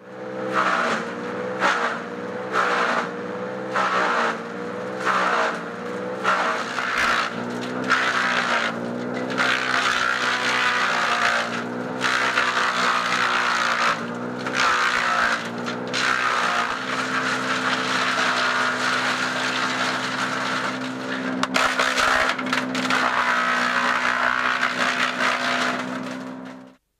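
Timberwolf TW S426TDHB green waste shredder running while brush and branches are fed in: its hammers crunch and crack through the material over a steady engine note. The note wavers under the load. The crunching comes in bursts about once a second in the first half, then runs more continuously. The sound cuts off suddenly near the end.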